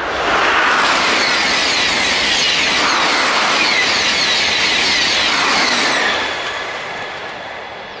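TGV Réseau high-speed electric trainset passing close at speed: a loud rush of air and steel wheels on rail, with a rapid repeating clatter as the bogies go by. It dies away after about six seconds.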